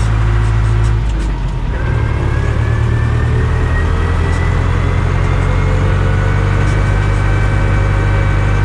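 Deutz-Fahr DX 3.60 tractor's air-cooled diesel engine running while driving. About a second in the sound briefly dips, then a whine climbs slowly in pitch as engine speed picks up.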